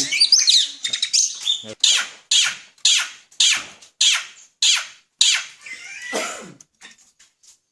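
Pet bird giving a series of about eight harsh, raspy squawks, roughly two a second, after a few higher chirps at the start.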